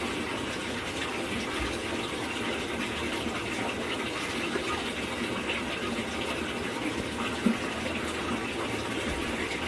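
Water running steadily inside a Samsung washing machine, with one brief knock about seven and a half seconds in.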